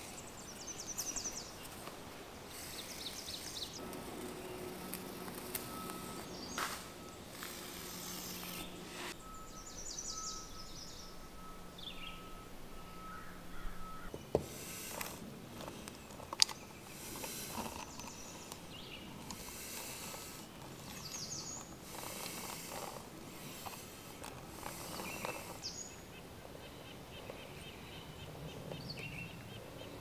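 Quiet outdoor ambience with birds chirping now and then, over sporadic rustling and scraping of hand work on a concrete floor. Two sharp clicks around the middle come from a caulking gun being worked to lay construction adhesive. A faint steady hum runs for several seconds near the start.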